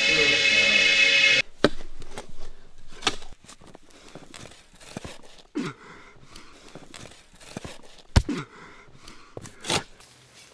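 A few notes of background music cut off about a second and a half in. Then sandy soil is dug and scooped by hand: irregular scrapes, rustles and soft thuds of earth, with a few sharper knocks.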